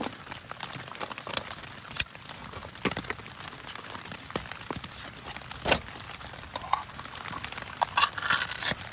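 Irregular crinkling, crackling and sharp clicks of materials being handled and worked by hand, as a makeshift spoon is made, over a steady hiss.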